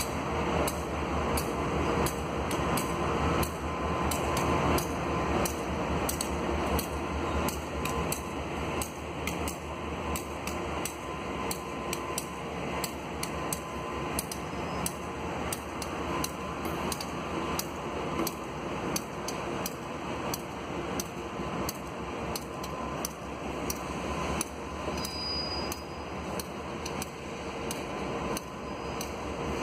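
Freight train rolling slowly past, its wheels clicking regularly over the track, about two to three clicks a second, over the steady running of a diesel-electric locomotive.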